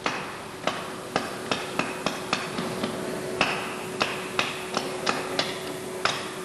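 Hammer taps on the metal of a MAN B&W two-stroke engine exhaust valve assembly: about fifteen sharp taps at an uneven pace, two to three a second, with a short pause about halfway through. A steady hum runs underneath.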